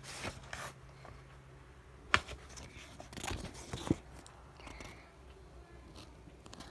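Handling noise of a hardcover picture book and the phone filming it: faint rustling with a few sharp taps, the loudest about two seconds in and just before four seconds.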